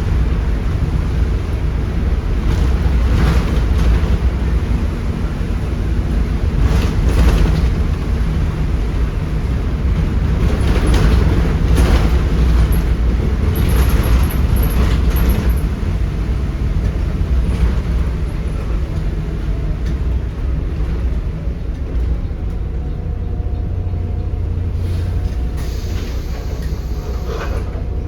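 Volvo B7RLE bus's 7.3-litre Volvo D7C diesel engine running under way, a heavy steady rumble with bursts of rattling and knocks every few seconds. A steady whine joins near the end.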